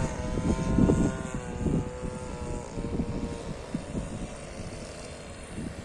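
Radio-controlled model warbird plane's engine and propeller droning in flight, a steady pitched hum that dips slightly in pitch at the start and then slowly fades as the plane moves away.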